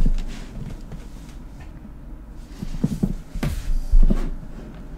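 Several dull thumps, the loudest right at the start and again about four seconds in, with quieter stretches between.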